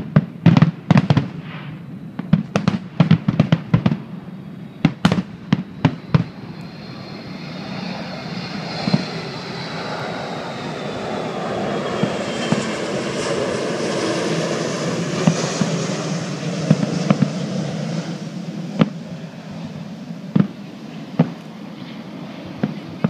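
Aerial fireworks shells bursting: a rapid series of sharp bangs for about the first six seconds, then a few scattered bangs near the end. In between, a rushing noise swells and fades, with a thin tone sliding down in pitch.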